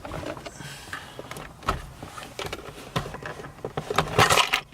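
Plastic shifter trim being lifted out of a car's centre console by hand: scattered clicks and knocks, with a louder scraping rustle near the end.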